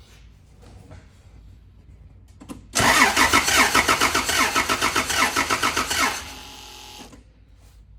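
Toyota Land Cruiser engine spun over by its starter for about three seconds without starting, a rhythmic chugging crank for a compression test on cylinder number 3, which shows no compression.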